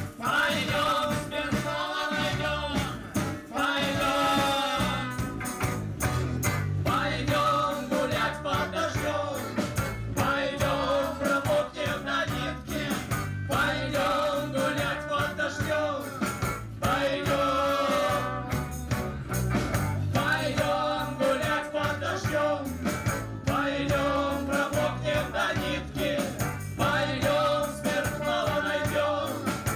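A live band plays a tango on accordion, electric guitar and drums. A wavering melody line runs in short phrases over a steady beat and bass.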